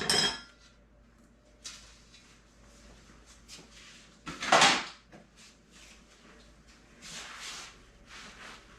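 Kitchen handling sounds while baking: a few short knocks and rustles, the loudest about four and a half seconds in, with softer ones near the end.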